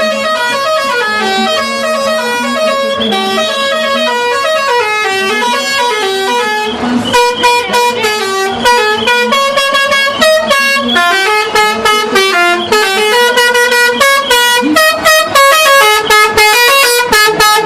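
Multi-tone telolet air horn on a PO Haryanto bus playing a fast tune of stepping notes. For about the first seven seconds the notes run smoothly into one another; after that the horn plays in short, choppy blasts.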